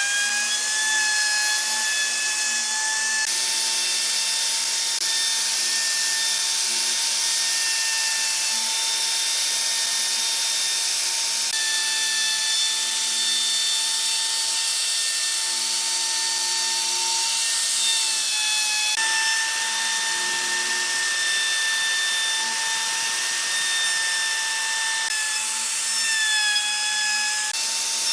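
Handheld electric power tool working wood. Its motor runs at a steady high whine over a hiss of cutting or sanding, with small dips in pitch a few times as it takes load.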